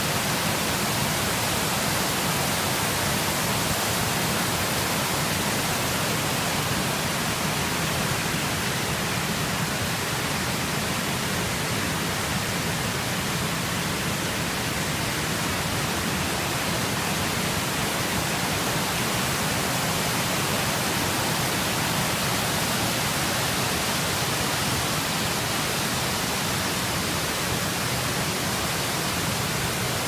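Waterfall: water cascading over terraced limestone tiers into pools, a steady, even rush.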